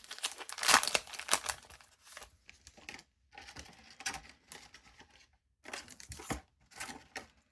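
A One Piece card game booster pack wrapper being torn open: loud crinkling rips in the first second or two, then quieter on-and-off crinkling and rustling.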